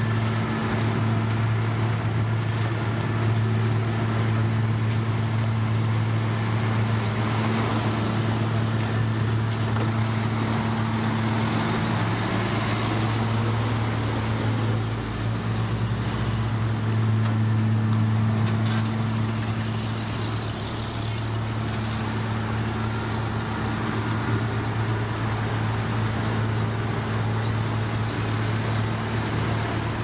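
Heavy diesel dump truck engines running with a steady low hum and traffic noise. About twelve seconds in, one engine's pitch rises briefly as a vehicle speeds up.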